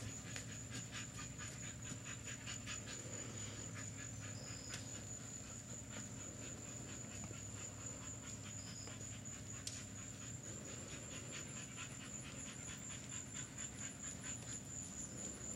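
Mule trotting on a sand arena: soft hoofbeats in an even rhythm, about three a second. A thin, steady high-pitched tone runs underneath.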